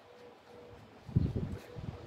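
Irregular low rumbling bursts of wind buffeting the microphone, starting about a second in, over a faint steady hum.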